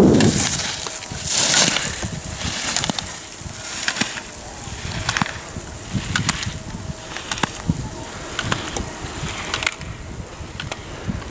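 Slalom skis scraping and carving across hard snow in a rhythmic series of turns, about one a second, with sharp knocks as the gate poles are struck. Loudest right at the start, where the skier passes close by.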